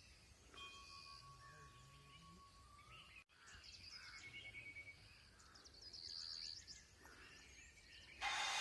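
Faint outdoor birdsong: small birds whistling and chirping, with short trilled phrases, over a quiet background. A louder hiss cuts in just at the end.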